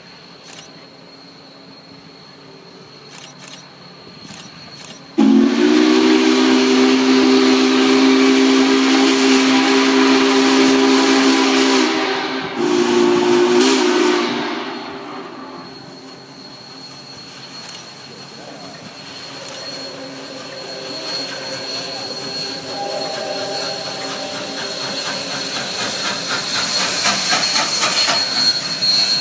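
Union Pacific 844, a 4-8-4 steam locomotive, sounds its steam whistle: a long loud blast of several tones at once that slides briefly up into pitch, then a short second blast. Afterwards its running noise and steam hiss grow steadily louder as it draws near, with a fast rhythmic beat in the last few seconds as it passes close by.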